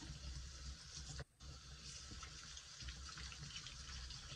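Tap water running into a foam-filled sink while a soapy sponge is squeezed by hand, with faint crackling of lather. A steady low hum lies under it, and the sound cuts out briefly about a second in.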